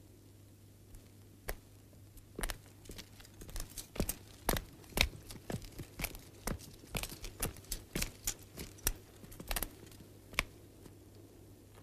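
Footsteps on a packed-dirt ground: sharp separate steps at about two a second that stop near the end, over a low steady hum.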